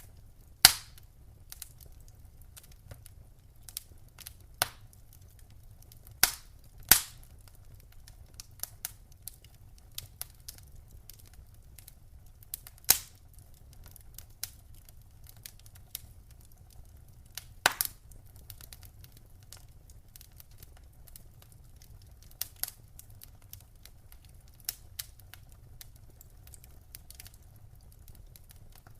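Wood fire crackling: irregular sharp pops and snaps, a handful of them loud, over a faint low rumble.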